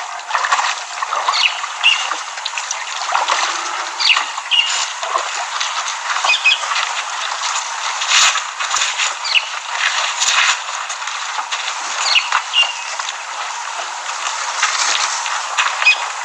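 Waterhole sounds: a steady wash of splashing, sloshing water with frequent short clicks, and small birds chirping now and then.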